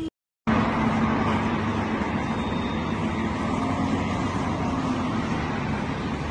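A steady, loud mechanical rumble with a low hum, like a running motor or road traffic, starting after a brief gap of silence.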